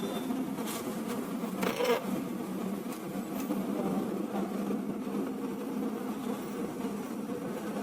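A steady low buzzing hum, with a couple of light clicks in the first two seconds.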